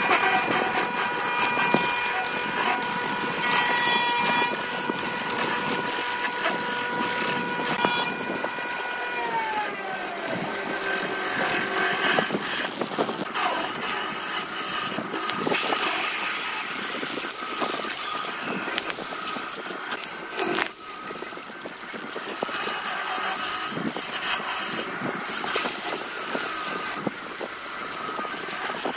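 BURT wood lathe spinning a glued-up block of coloured wood while a hand-held turning tool cuts into it, giving a rough, scratchy noise of shavings tearing off. The lathe motor's steady whine falls in pitch about nine seconds in.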